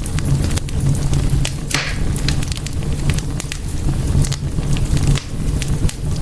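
Fireplace fire crackling: frequent sharp pops and snaps over a steady low rumble of the flames, with a short hiss about two seconds in.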